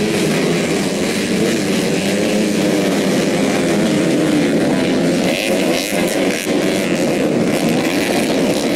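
Several modified 125cc four-stroke underbone motorcycle engines revving hard in a race, their pitches overlapping and rising and falling as the riders work the throttles.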